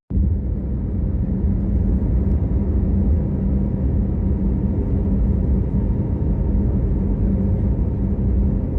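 A car running, heard as a steady low rumble with a constant hum, most likely engine and road noise.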